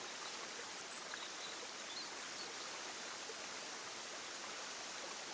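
Quiet, steady rush of a flowing stream, with a few faint, short, high bird chirps about one and two seconds in.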